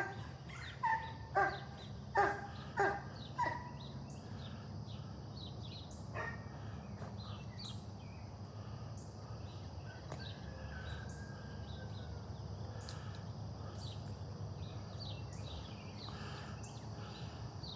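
An animal gives about six loud calls in quick succession, roughly two a second, in the first few seconds. Birds chirp through the rest, over a steady low hum.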